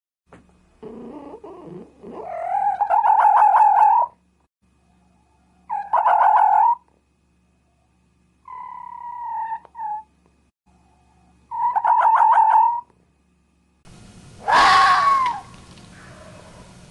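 Fox calling: about five drawn-out cries, each around a second long, the first longer and rising in pitch. The last cry, near the end, falls in pitch over a steady background hiss.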